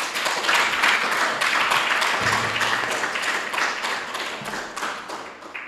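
Audience applauding: many hands clapping in a dense patter that fades away near the end.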